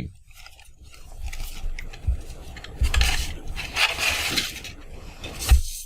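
Folded cardstock model pieces and craft supplies handled on a tabletop: paper rustling in a few short bursts, with light knocks from items set down, the loudest knock near the end.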